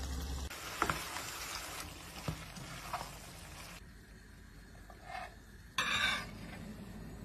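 Diced lamb liver sizzling as it fries in a pan, with a few sharp knocks from stirring. The sizzling cuts off abruptly about four seconds in, leaving a quieter stretch with a short burst of noise near the end.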